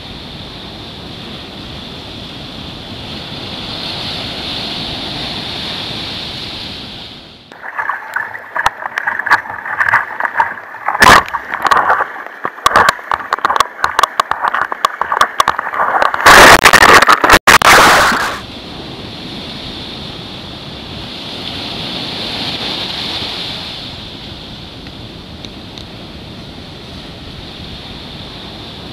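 Surf breaking and washing on the shore as a steady rushing. In the middle, for about ten seconds, loud close water splashing and slapping over a kayak-mounted camera as the kayak punches out through the waves, with sharp knocks and the loudest burst of spray near the end of that stretch, before the steady surf returns.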